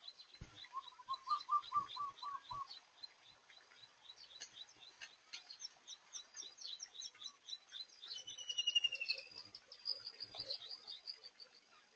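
Several small birds calling: a steady run of high chirps, a short lower trill about a second in, and faster high chirp series with a falling trill in the second half.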